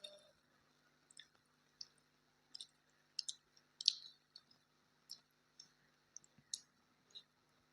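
Close-up eating sounds: irregular soft mouth clicks and smacks of chewing a meal of rice and vegetables, about one or two a second, over a faint steady hum.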